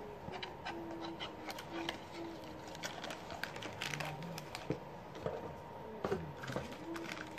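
Small cardboard blind box and its wrapping being handled and opened by hand: scattered clicks, rustles and crinkles.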